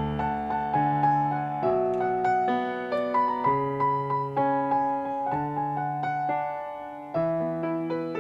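Instrumental interlude on piano or electric piano: a melody over chords and a bass line, each note struck and then fading.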